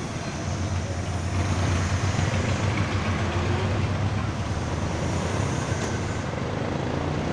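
City traffic heard from a moving vehicle: a steady low engine hum under road noise, growing louder about a second in.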